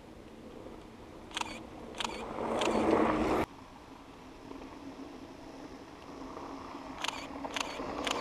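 Mountain bike tyres rolling over loose gravel, getting louder as a rider comes down toward the microphone, with several sharp clicks. The sound cuts off suddenly about three and a half seconds in, then a second approach builds up again near the end.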